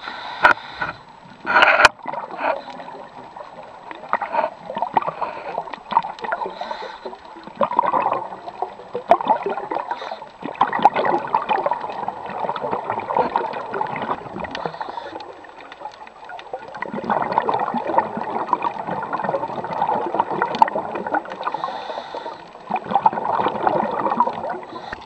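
Scuba diver's exhaled bubbles from a regulator, gurgling in bursts of a few seconds with quieter gaps between breaths, heard underwater through the camera housing. A few sharp clicks near the start.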